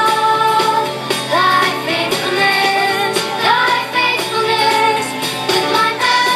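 A song playing: music with a singing voice over it.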